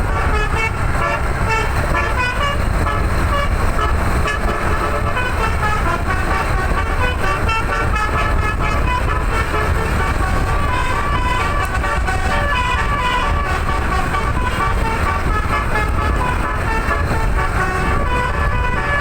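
A tour bus's telolet musical air horn playing a continuous melody of short notes that change pitch several times a second, over a steady low rumble.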